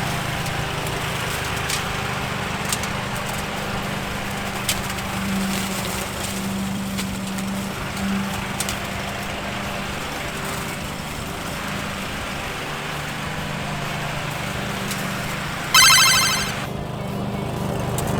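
Petrol lawn mower engine running steadily. About three-quarters of the way in, a short bright ringing tone sounds over it and fades.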